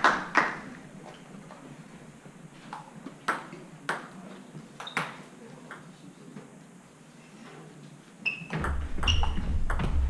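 Table tennis ball clicking off bats and table: a few scattered knocks, then from about eight seconds in a quick rally of regular clicks with short ringing pings.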